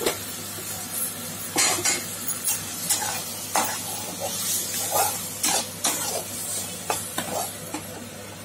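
Spatula stirring ridge gourd pieces in a kadai of hot oil, scraping and knocking against the pan every half second to a second over a steady sizzle of frying.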